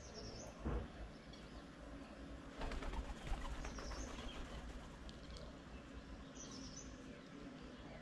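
Birds at a feeding table: a short high call repeated about every three seconds, and a brief flurry of wing flutters and scuffling about three seconds in.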